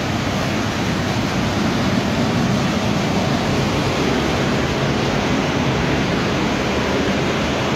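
Flood-drying equipment running: air movers and heat-drying blowers give a constant rushing of air, heaviest in the low end, with no change in level.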